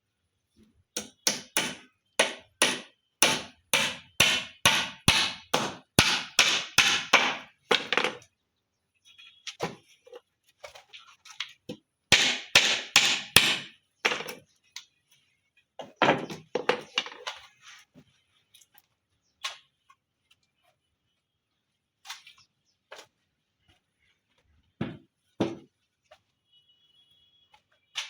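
Hammer driving long nails into timber: a run of quick blows about three a second for several seconds, then two shorter runs and a few single knocks.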